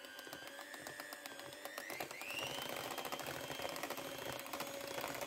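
Electric hand mixer running in a bowl of buttercream (butter, cooked condensed milk and cream cheese), a motor whine with a fast patter of clicks from the beaters. The whine rises in pitch about two seconds in as the mixer speeds up.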